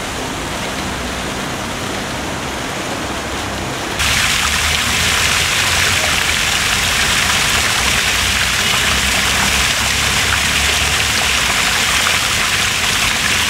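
Fountain water spraying and splashing in a steady hiss. About four seconds in it becomes suddenly louder and brighter, close to a stepped cascade channel with water rushing down it.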